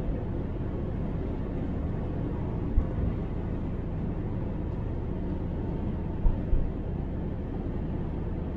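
Steady low road and engine rumble of a car heard from inside the cabin while driving, with a few brief thumps: one about three seconds in and two close together a little past six seconds.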